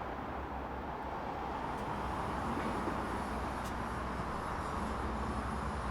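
Steady rumbling background noise with no distinct events, joined about a second and a half in by a faint high whine.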